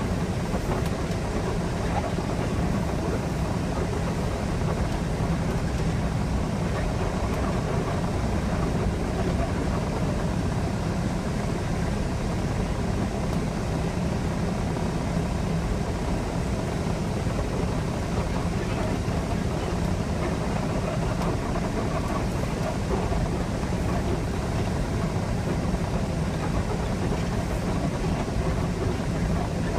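Semi-truck's diesel engine running steadily, heard from inside the cab while the truck moves, a low, even drone with no change in pitch.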